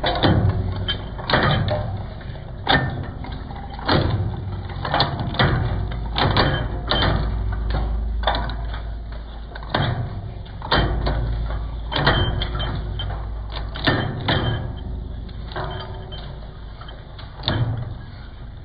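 Twin-shaft shredder's rotating cutters cracking and snapping apart a hard white plastic figure: sharp cracks about once a second over the steady low hum of the drive motor. The cracks thin out near the end as the last pieces go through.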